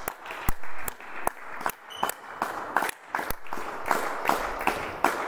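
Spectators applauding in a sports hall, the separate claps of a small crowd, growing denser toward the end: applause for the point that wins the badminton match.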